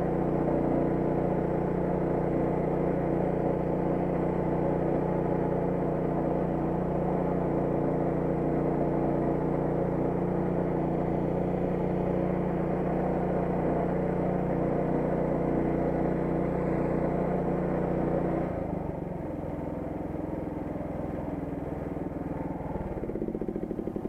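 An engine running at a steady speed, then dropping to a lower, quieter running about 18 seconds in.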